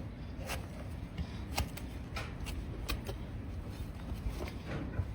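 Overgrown donkey hoof being trimmed: irregular sharp clicks and scrapes as a blade pares away the hoof horn.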